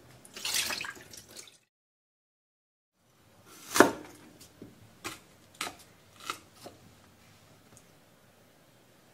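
Water is poured out of a steel bowl into a sink, splashing for about a second, then cuts off. Then a kitchen knife knocks on a wooden cutting board as a slice of ginger is crushed under the flat of the blade: one loud knock, then four or five lighter ones.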